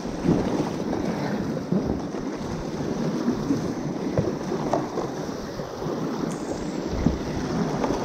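River water rushing and splashing steadily around an inflatable kayak in a rocky stretch of rapids, with wind buffeting the microphone.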